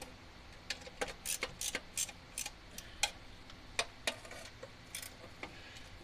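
Irregular sharp metallic clicks and clinks, about fifteen in all and busiest in the first half, from a socket wrench with a long extension being worked on a spark plug.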